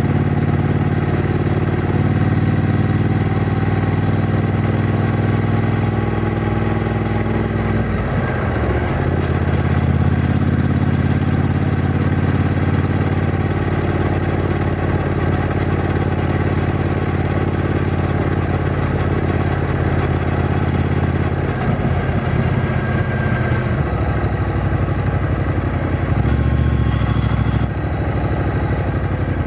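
Triumph Bonneville T120's 1200 cc parallel-twin engine running steadily under way. The engine note breaks briefly about eight seconds in.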